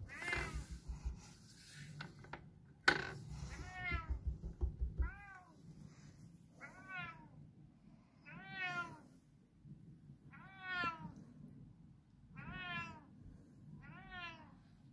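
Domestic cat meowing over and over, about one meow every two seconds, each rising then falling in pitch: the calls of a cat shut outside asking to be let in. A single sharp click about three seconds in.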